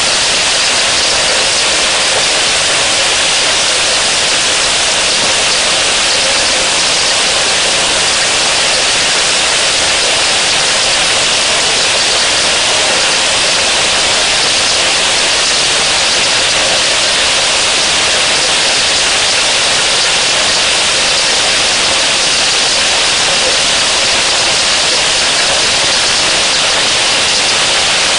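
Heavy rain falling steadily: a dense, even hiss with no breaks or single drops standing out.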